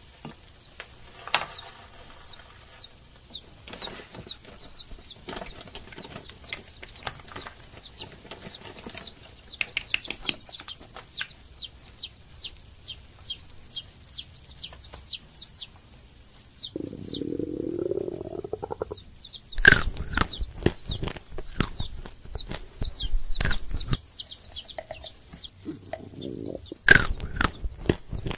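Baby chicks peeping in rapid, falling chirps almost throughout, over the crackle and rustle of a hollow chocolate bunny being handled and broken open. Two sharp cracks stand out, about two-thirds of the way in and near the end.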